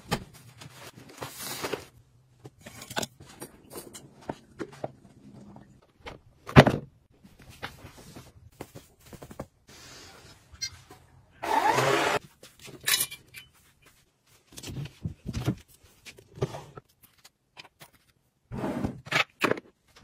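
A string of short household handling sounds: clicks, knocks and scrapes of objects being moved, separated by quiet gaps, with a brief louder rushing noise a little past halfway.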